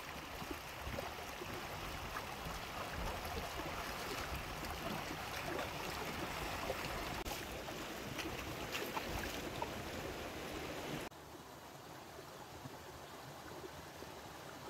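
Shallow rocky stream flowing with a steady rush of water, which turns quieter about eleven seconds in.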